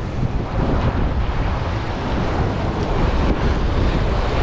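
Ocean surf washing into a narrow channel between lava rocks, with wind buffeting the microphone as a steady low rumble.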